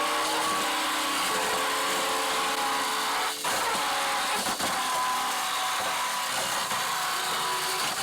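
Break Go Ga Tornado Fang battle toy whirring steadily as it spins in a battle, over background music.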